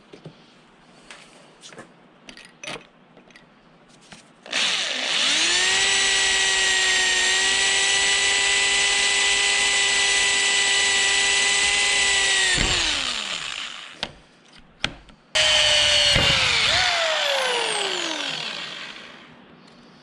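Corded electric hand drill boring a hole through the steel square tubing of a sawmill log stop. The motor whines steadily for about eight seconds and then winds down. A few light handling clicks come before it, and near the end the drill runs again briefly and coasts down with a falling whine.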